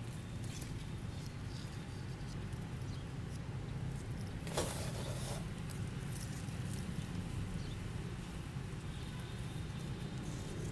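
Hands working potting mix around a grafted desert rose (adenium) in its pot: soft rustling and small crunches, with one louder scrape about four and a half seconds in, over a steady low hum.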